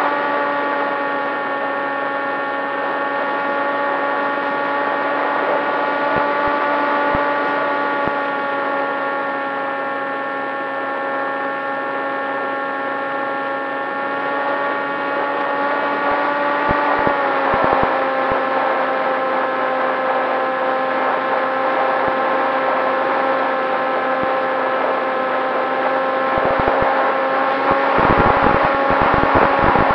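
Electric motor and propeller of a Popwing foam flying wing, heard through its onboard camera: a steady whine over wind rush. The pitch drops a little about halfway through as the throttle eases, and low wind buffeting comes in near the end.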